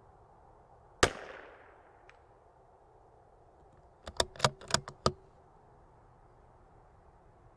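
A CZ 457 .22 LR bolt-action rifle fires once, a sharp crack with a short trailing echo, followed by a faint tick about a second later. About three seconds after the shot comes a quick run of five or six metallic clicks as the bolt is worked to eject the spent case and chamber the next round.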